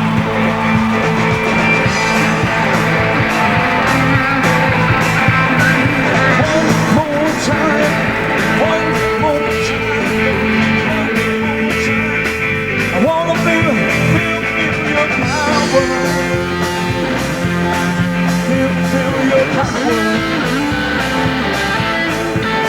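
A band playing a rock-style gospel song, with guitar over a steady beat.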